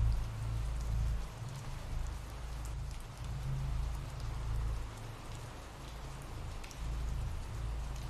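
Steady rain ambience: an even hiss of rainfall with scattered sharp drop ticks over a low, wavering rumble.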